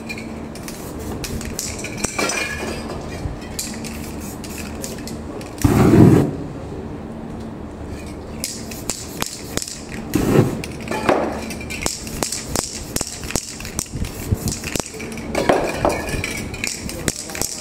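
Aerosol spray paint cans being shaken, the mixing ball inside rattling in quick clicks, with short hisses of spray. There is a loud low thump about six seconds in, and smaller ones later.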